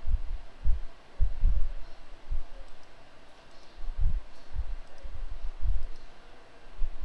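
Irregular dull low thumps and bumps, about a dozen, with faint computer mouse clicks between them.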